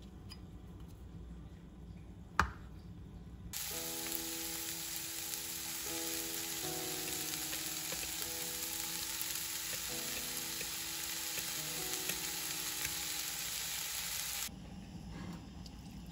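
Bracken fern (gosari) and sliced onions sizzling in oil in a hot non-stick frying pan. The sizzle starts suddenly a few seconds in and cuts off near the end, over soft background music. A single sharp click comes just before the sizzle.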